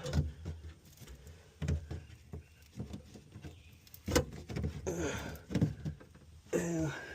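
Irregular knocks and scraping from hand tools working at factory sound deadening mat inside a stripped car body, with a sharp hit about four seconds in. A couple of short, falling squeaky sounds come around five seconds in and near the end.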